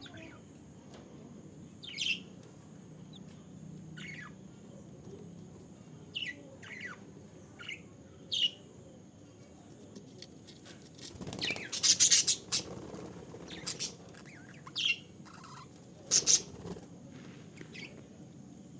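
Baby parrots calling: scattered short chirps that slide down in pitch, with a loud run of harsh squawks midway and another brief one a few seconds later.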